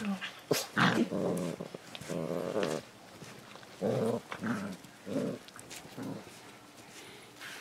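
Akita puppies growling as they play-fight, a string of short growls that thin out and stop about six seconds in.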